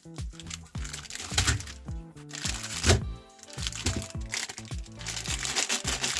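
Background music over repeated crunching and crackling from a meat grinder crushing things, with sharp cracks a little after a second in and around three seconds in.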